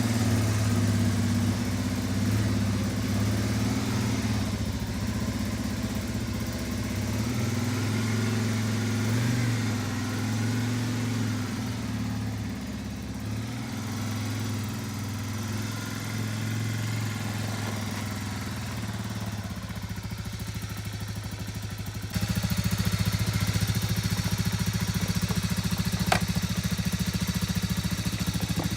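Honda ATC 250SX single-cylinder four-stroke engine idling steadily on a cold start after sitting about ten months. The sound jumps abruptly louder about three quarters of the way through.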